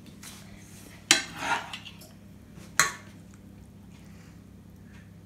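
Metal spoons knocking against cookware, a clatter about a second in and a sharp clink just before three seconds, as leeks are stirred in a cast-iron frying pan. A faint low steady hum runs underneath.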